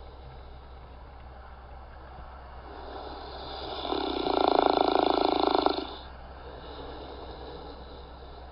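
A person snoring: one long, loud, rattling snore that builds for about a second and breaks off sharply just past the middle, followed by a quiet breathy hiss.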